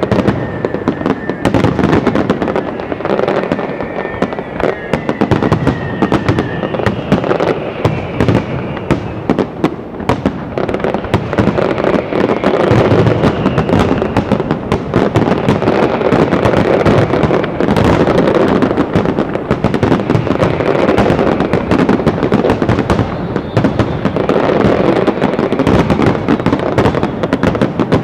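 Aerial fireworks display: a loud, continuous barrage of shell bursts and crackling, with a few gliding whistles in the first several seconds.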